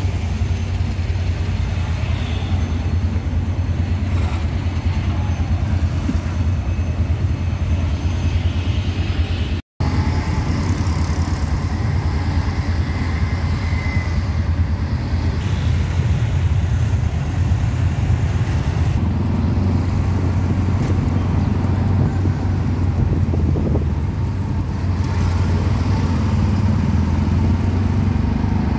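Steady low engine drone and road noise of a tuk-tuk in motion, heard from its passenger seat. The sound cuts out completely for a moment a little under ten seconds in.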